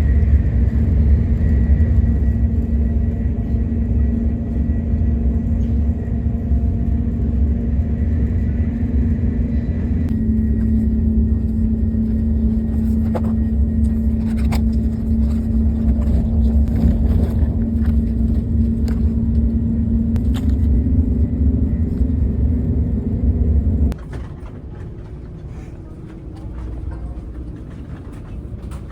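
Steady low rumble of a vehicle in motion, with a constant hum; it cuts off suddenly about 24 seconds in, leaving a much quieter background.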